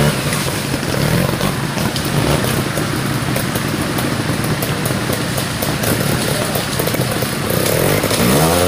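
Trials motorcycle engine running at low revs as the bike is ridden through a rocky stream section, with short blips of throttle, and revs rising sharply near the end.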